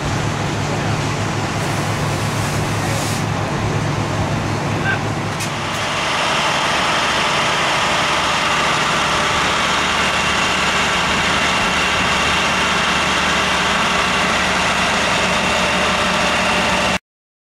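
Fire trucks' diesel engines running steadily, a loud continuous drone. About six seconds in the sound changes to a broader, more even rush of noise with a faint high whine, and it cuts off suddenly near the end.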